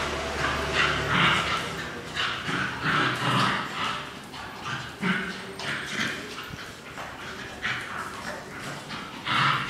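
A Shih Tzu and a mixed-breed dog play-fighting, giving short yips and whimpers in bursts, one or two a second.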